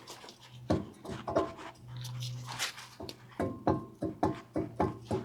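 Worn right-front wheel hub bearing on a GM Express van, turning and giving a run of sharp metallic clicks, about four a second in the second half, over a low hum: the sound of a bad hub bearing.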